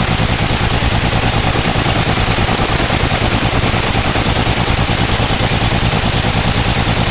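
BS6 engine idling with a misfire, running with a regular pulsing beat in its sound.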